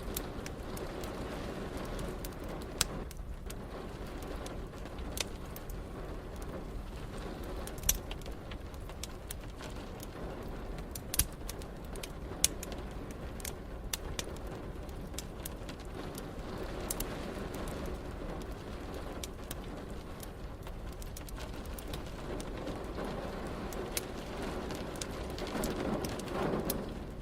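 A wood fire crackling, with sharp pops every few seconds over a steady low rumble of rain, and a low swell near the end.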